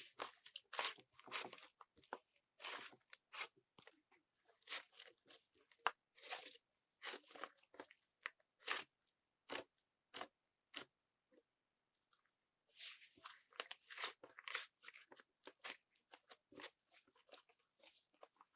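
White sticky, fluffy slime being pressed, stretched and kneaded by hand, giving quiet, irregular crunchy crackles and pops in clusters, with a short pause a little past the middle.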